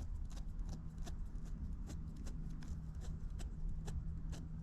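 Light, irregular clicking as the Axial SCX24's small spur gear is spun by hand to unthread its retaining nut held in needle-nose pliers.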